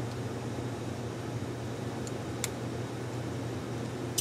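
Steady low room hum and hiss, like a fan running. Over it come small light clicks of the GoPro Session's tiny sensor-module parts being handled and pulled apart: a faint click about two seconds in, a clearer one just after, and a sharper one at the end.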